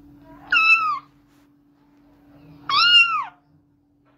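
A cat meowing twice, each meow about half a second long and rising then falling in pitch, over a faint steady hum.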